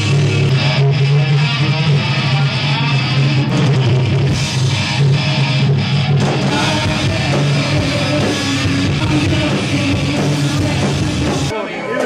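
Loud heavy rock music with a drum kit and guitars, stopping abruptly near the end.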